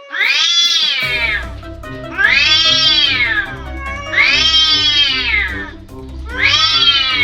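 Domestic cat yowling in a drawn-out threat: four long yowls, each rising then falling in pitch, the typical sound of cats squaring up to fight. Background music plays underneath.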